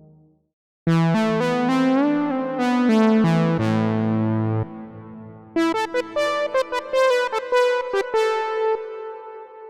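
u-he Repro-1 software synthesizer, an emulation of the monophonic Sequential Pro-One, playing a bright single-note lead preset. One phrase starts about a second in, sliding between some notes, then after a short break a second phrase of quicker, shorter notes tails off near the end.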